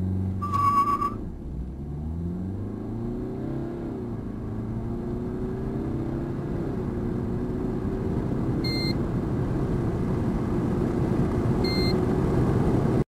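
BMW 320d's 184 hp four-cylinder turbodiesel accelerating hard from standstill, heard from inside the cabin. Its pitch climbs and drops with quick upshifts of the eight-speed automatic in the first few seconds, then rises slowly as the car gains speed in a longer gear. A short electronic beep sounds about half a second in, and two brief beeps come later.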